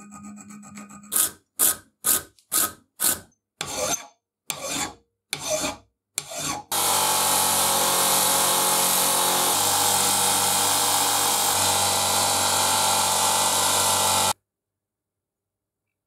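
A triangle file rasps along a steel screw thread in about nine separate strokes. Then a bench grinder's spinning wheel runs steadily with a metal part held against it, and cuts off suddenly near the end.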